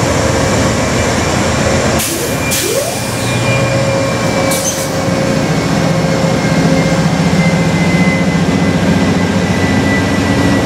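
Amtrak passenger train, a diesel locomotive and bilevel Superliner cars, rolling slowly past: steady diesel engine and wheel-on-rail noise. A few sharp bursts of noise stand out about two and four and a half seconds in.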